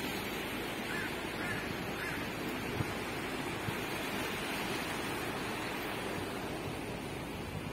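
Steady outdoor rushing noise, with three short high chirps in the first two seconds.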